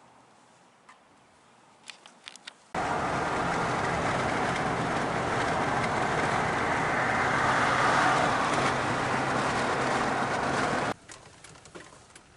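A car in motion: steady road and engine noise with a low hum underneath. It starts abruptly about three seconds in and cuts off abruptly near the end, after a few faint clicks.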